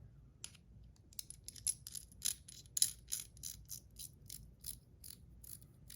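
Small, sharp metallic clicks and clinks from stainless steel Top C fidget toys being handled, coming irregularly several times a second, thickest in the middle.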